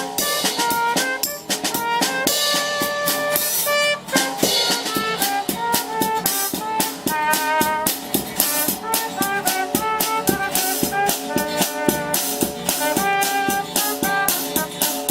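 Music with a steady, fast drum beat and melody lines over it.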